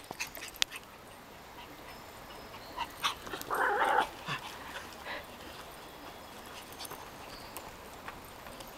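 Pomeranian giving one short bark about three and a half seconds in, amid scattered light footfalls on a dirt trail.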